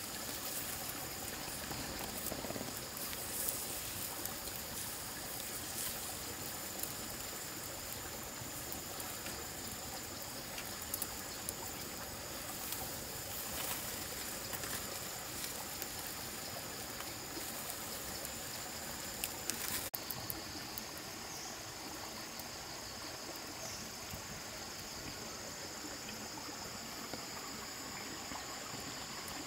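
Stream water running steadily, with a few small clicks and knocks over it and a faint steady high whine.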